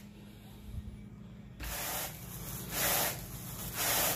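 Carpet grooming rake dragged through carpet pile, a rubbing noise with each stroke. A quiet spell comes first, then a longer stroke, then two louder strokes about a second apart near the end.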